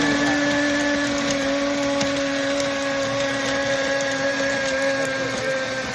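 Countertop blender running steadily, blending a dry mix of cornstarch crunchies with baking powder. Its motor hum sags slightly in pitch toward the end.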